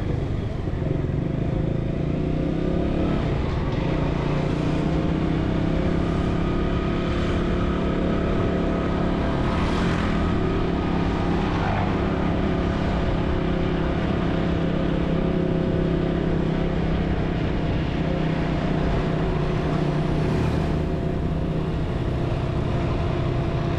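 Motorcycle engine running steadily as it is ridden, its note holding nearly even throughout. Brief swells of other road noise come about ten seconds in and again about twenty seconds in.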